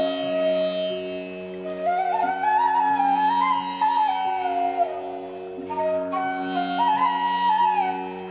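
Instrumental music in an Indian classical style: a single melody line that slides and bends between notes over a steady drone.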